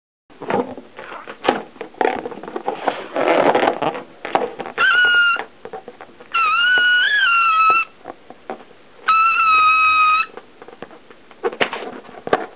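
Air let out through a stretched balloon neck, squealing three times in steady high-pitched squeals about a second long each, the middle one longest and wavering in pitch. A few seconds of rustling and clattering come before the squeals.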